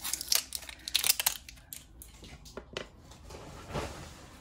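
Hands handling washi tape rolls on a tabletop: a quick run of crinkling and crisp clicks in the first second or so, then scattered clicks and a soft rustle near the end.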